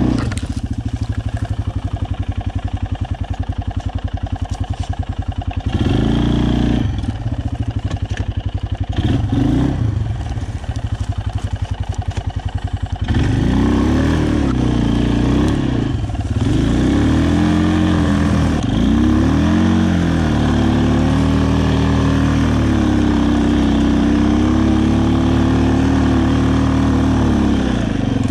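Aeon Crossland 300 quad's single-cylinder engine running at low revs with a rapid pulsing, revving up briefly a couple of times, then, from about halfway, pulling at higher revs with the pitch rising and falling.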